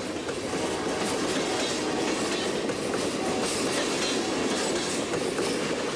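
Train running along the track: a steady noise with wheels clattering over the rails.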